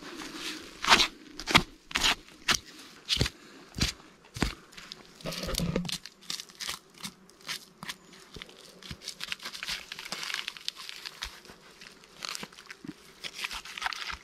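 Knife cutting the hide and meat along the back of a freshly shot red deer stag to take out the backstraps: a run of irregular sharp clicks and scrapes. They are loudest and most widely spaced in the first few seconds, then come closer together and softer.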